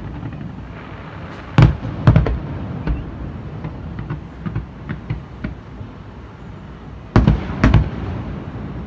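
Aerial firework shells bursting. Two loud bangs come about a second and a half in, a scatter of smaller pops follows through the middle, and two more loud bangs come near the end, over a steady low rumble.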